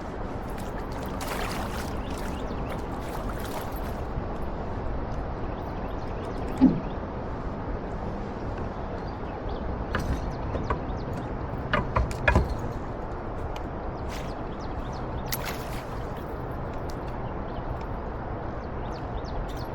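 Steady rush of fast-flowing river current around a kayak, with one sharp knock a few seconds in and a handful of lighter clicks and knocks later on.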